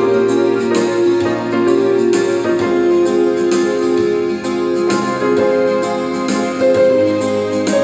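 Yamaha portable electronic keyboard played with both hands: a ghazal melody in held notes over steady lower notes.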